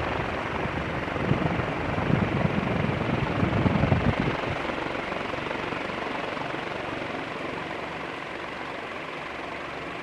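Leslie Locke 'Play it Again Sam' DF-361 ceiling fan running fast, its blades giving a steady rush of moving air. For the first four seconds its draft buffets the microphone with low rumbling gusts, then the sound settles into an even whoosh.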